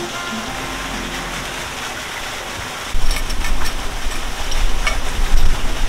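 Steady rush of running water from the stream and fountain. About three seconds in, loud, uneven low rumbling from wind buffeting the microphone joins in, with a few clicks.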